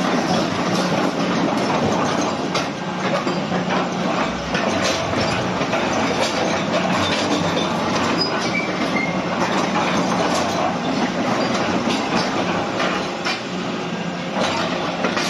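Caterpillar 315D hydraulic excavator running, a steady loud machine noise with frequent metallic clanks throughout and a few brief high squeals.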